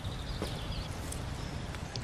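Wood campfire burning with a few sharp crackles over a low steady rumble.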